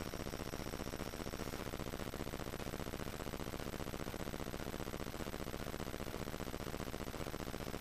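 Steady electronic hiss and buzz: the self-noise of a trail camera's microphone and circuitry, with no distinct events. A faint high whine cuts off about a second and a half in.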